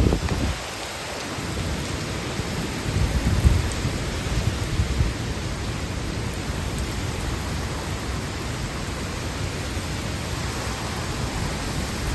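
Typhoon rainstorm: a steady hiss of heavy rain and wind, with a low rumble swelling about three seconds in and a smaller one a little later.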